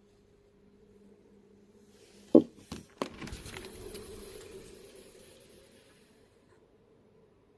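A window being opened close by: a loud latch clack, two more knocks, then the sash sliding with a rushing hiss that fades out over about three seconds.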